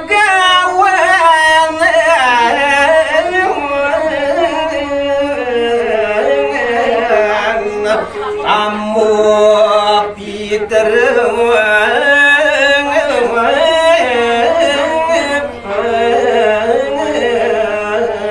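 A solo male voice sings a Balinese pupuh Sinom verse in geguritan style, unaccompanied, with long, wavering, ornamented held notes. The phrases break only briefly, about ten and fifteen seconds in.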